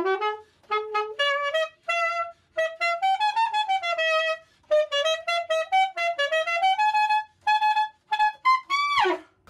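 Selmer Serie III alto saxophone played solo: a melody in short phrases with brief breaths between them, ending in a quick downward slide of the pitch.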